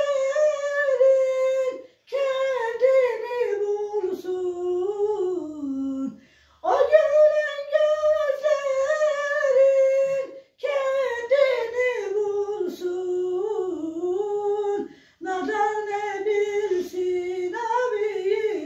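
A woman singing alone, without accompaniment, in long ornamented phrases that waver and slide in pitch, with brief pauses for breath between them about every four seconds.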